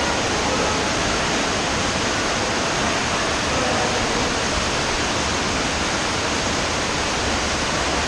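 Small waterfall inside a rock cave, with a steady rush of falling water.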